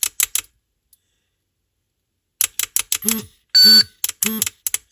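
XGuard Plus power backup's alarm sounding: bursts of electronic beeps and chirps, a few at the start, then a dense run in the second half with one loud high beep in the middle of it. It keeps sounding because the unit is set to ignore the radio switch that would turn it off.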